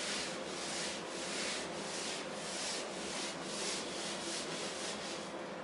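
Whiteboard eraser rubbing marker writing off a whiteboard in quick back-and-forth strokes, about two strokes a second.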